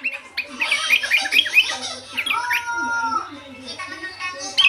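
Sooty-headed bulbul (kutilang) singing a fast, varied song of short chirps sliding up and down, with a held, steady whistle a little past halfway.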